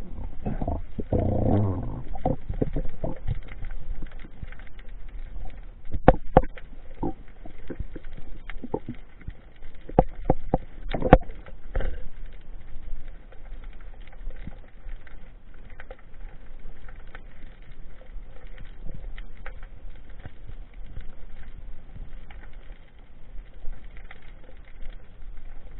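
Underwater noise picked up by a diving camera: a muffled watery rush with scattered clicks and knocks. There are sharper clusters about six seconds in and again around ten to eleven seconds, and a short low rush near the start.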